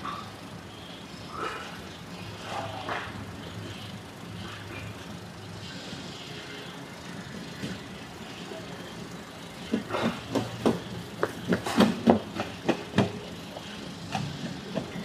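Steady mechanical hum of a generator, with a quick run of sharp knocks and clanks from about ten to thirteen seconds in, the sound of workers dismantling event tents.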